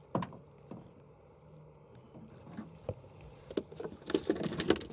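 Sharp clicks and knocks of fishing tackle being handled, a sabiki rig and rod against the boat, under a low steady hum. About four seconds in, the knocks crowd together into a quick, louder clatter as the rod is set over the gunwale.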